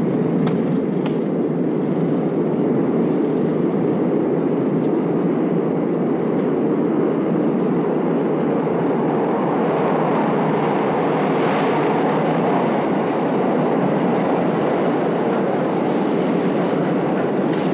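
New York subway train running in the station: a steady, loud rumble with no break.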